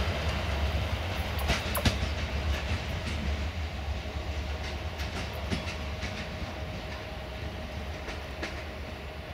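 Passenger train of coaches running away along the track: a low rolling rumble with occasional sharp wheel clicks over rail joints, fading steadily as the train recedes.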